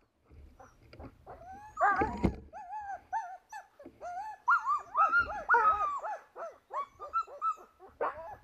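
Sled dogs whining in a quick run of short cries that rise and fall in pitch, starting about two seconds in.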